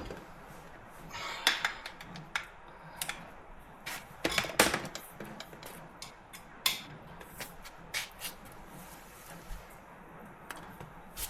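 Metal hand tools clinking and knocking in irregular sharp clicks as a socket and breaker bar are worked on a car's rear shock bolts. The loudest knocks come about a second and a half in and again about four and a half seconds in.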